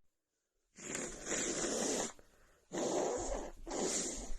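A person with a heavy cold breathing noisily through a congested nose: three rough, breathy rushes of air, the first and longest starting about a second in.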